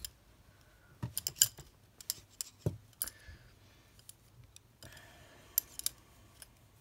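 Metal knitting needles clicking and tapping against each other in scattered clusters of sharp clicks, the loudest about a second and a half in, with short soft rustles of the wool knitting being handled.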